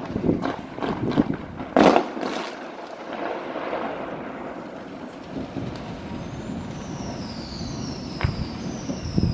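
New Year's Eve fireworks: a quick run of firecracker and rocket bangs, the loudest about two seconds in, then a steady rumble of the surrounding din. Near the end, whistling rockets give three falling whistles and another crack goes off.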